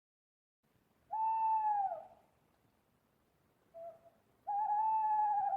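An owl hooting: a long hoot that drops in pitch at its end, a short soft note, then a second long, wavering hoot.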